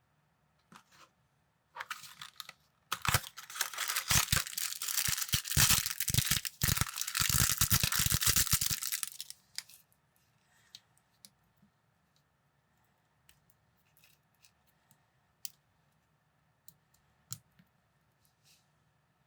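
Plastic packaging being torn and crinkled for several seconds, then scattered light clicks of small plastic building pieces being handled.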